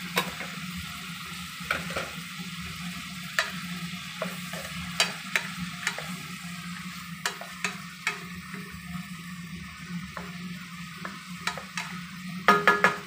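Cucumber pieces sizzling steadily in hot oil in a non-stick wok. A wooden spatula scrapes and knocks against the pan every second or so, with a quick flurry of louder knocks near the end as the vegetables are stirred.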